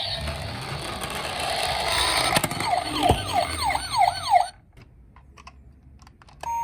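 Several toy police car and ambulance minicars sounding their electronic sirens at once: steady siren tones and fast yelping sweeps over a low rumble, with a click about two and a half seconds in. The sirens cut off suddenly about four and a half seconds in, and near the end a single two-tone hi-lo siren starts.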